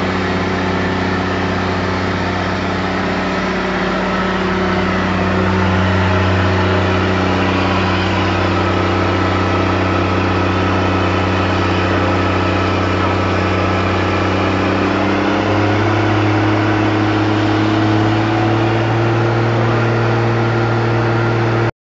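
Case IH 1255XL tractor's diesel engine running steadily while driving a PTO dynamometer. About fifteen seconds in, its note shifts up a little and keeps rising slowly.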